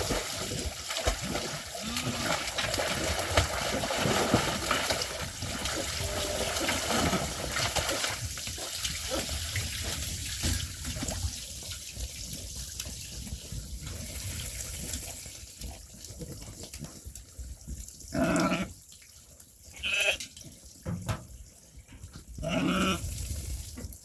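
Sheep bleating, a few short calls in the second half, over a steady rushing noise.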